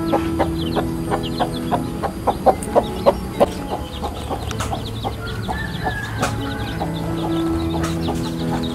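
Chickens clucking, with many short, rapid calls, over a few long held low tones near the start and again near the end.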